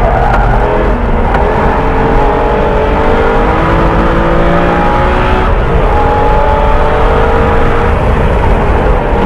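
Porsche 981 Cayman S's flat-six engine under hard acceleration, its pitch climbing steadily, dropping sharply about five and a half seconds in, then climbing again.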